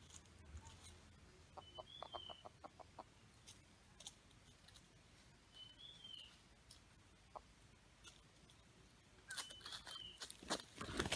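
Red junglefowl roosters clucking, a quick run of about eight soft clucks a couple of seconds in, with scattered ticks of feet in dry leaf litter and a short high chirp about every four seconds. Near the end the roosters rush at each other, scuffling loudly in the dry leaves.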